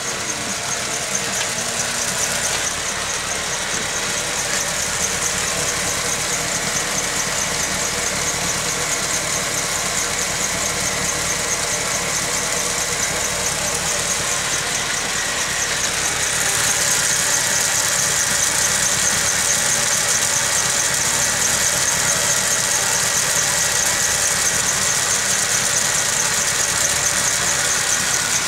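Homemade lathe running, its electric motor driving the spindle through V-belts and pulleys: a steady mechanical hum with a high whine over it. About halfway through it gets louder and brighter.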